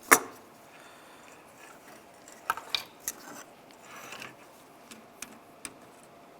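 Handling clicks from a truck door latch and cable assembly as the lock cable end is twisted into the latch: one sharp, loud click just after the start, then a few lighter clicks and small ticks of plastic and metal parts.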